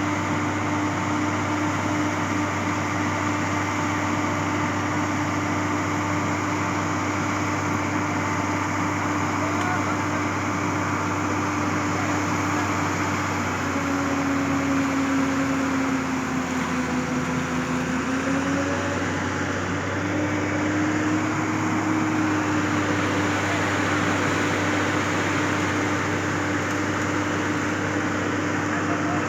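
Hitachi excavator's diesel engine running steadily. About halfway through, its pitch drops for a few seconds, then recovers.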